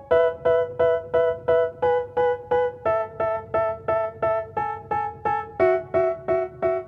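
Background music: a keyboard playing short repeated chords, about three a second, moving to a new chord every few seconds.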